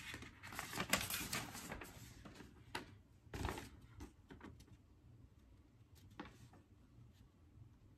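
Paper rustling and a book being handled, with a flurry of rustles and soft clicks over the first three seconds or so. After that come a few isolated light ticks and faint room tone.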